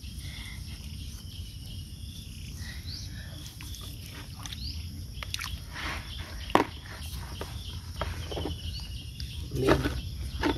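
Low outdoor rumble with faint chirps and a few sharp knocks and handling noises, the loudest about six and a half seconds in and again near the end.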